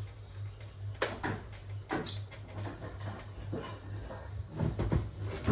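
Clicks and knocks of an all-in-one PC's plastic casing parts being handled and fitted back together, over a steady low hum, with a louder knock near the end.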